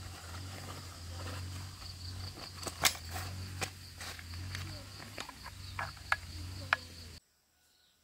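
Insects trilling steadily over a low hum, with a few sharp clicks and knocks. All of it cuts off suddenly about seven seconds in.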